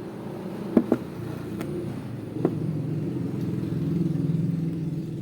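A motor vehicle's engine running close by, growing louder about three to four seconds in. Two sharp knocks come a little under a second in, and another about two and a half seconds in.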